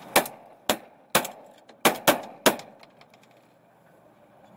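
Six shotgun shots in quick, uneven succession over about two and a half seconds, each a sharp crack with a short ringing tail, from a semi-automatic shotgun ejecting its spent shells.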